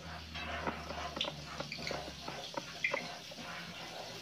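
Lovebirds pecking and nibbling at a corn cob in a wire cage: irregular small clicks and taps.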